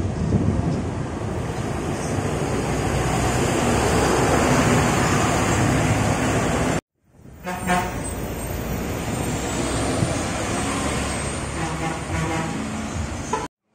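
Diesel coach buses passing along a busy street, engines running over steady traffic noise. The sound cuts out abruptly twice, about seven seconds in and near the end.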